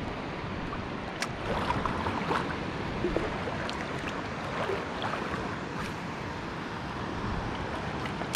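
Sea water lapping and sloshing close by, with wind on the microphone and a few sharp ticks.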